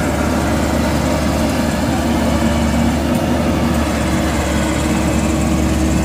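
Maxxi Bimo X rice combine harvester's diesel engine running steadily at a constant speed.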